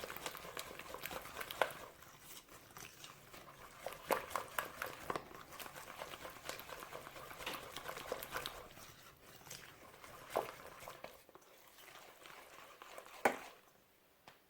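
Flour-and-water batter being beaten in a bowl: irregular wet slaps and clicks of the utensil against the bowl, sparser over the last few seconds, with one sharper knock near the end.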